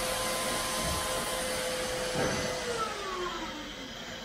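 An electric motor running at a steady pitch over a steady hiss, then winding down in pitch about three seconds in, with a single knock shortly before it winds down.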